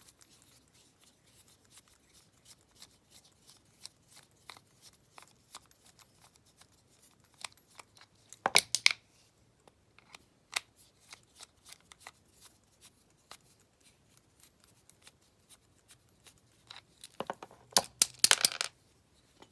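Small clicks and scrapes of a screwdriver turning a screw out of a metal padlock body, with a louder burst of clicking and rattling about eight seconds in and a longer one near the end.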